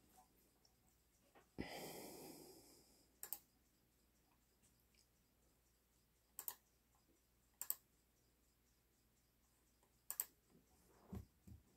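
Near silence broken by a few sharp double clicks, four pairs spread a few seconds apart. A short breathy hiss comes about two seconds in, and a low thud near the end.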